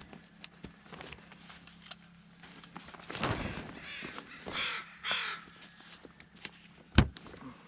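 A bird giving a few harsh calls around the middle, over scattered light clicks of handling noise, with one sharp knock near the end.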